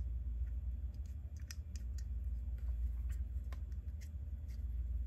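Small, irregular clicks and taps of hard resin-printed parts knocking together as they are handled and fitted, over a steady low hum.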